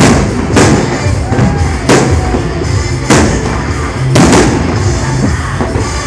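Aerial firework shells bursting: about six sharp bangs at uneven intervals, two of them close together a little past the four-second mark, over music playing throughout.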